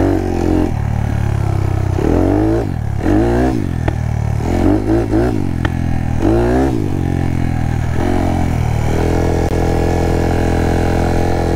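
Honda Monkey with a 181cc big-bore kit, its single-cylinder engine revving up and down several times under throttle, then running at a steady pitch from about nine seconds in.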